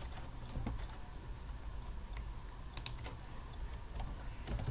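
Computer keyboard typing: a few scattered key clicks as a short word is entered, over a low steady hum.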